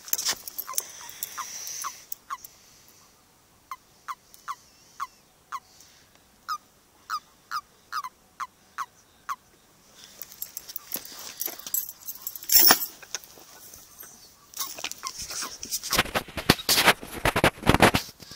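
Common toads in a mating ball croaking: short, clipped calls repeated about twice a second for the first half, the kind of release call a male gives when clasped by a rival. After that, loud rustling and sharp knocks, densest near the end.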